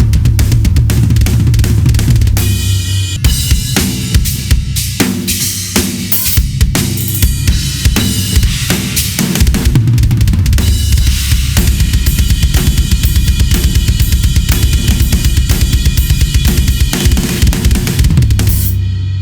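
Gretsch USA Custom drum kit played solo: 22-inch kick, toms, chrome-over-brass snare and cymbals in fast, busy fills. The playing eases off near the end.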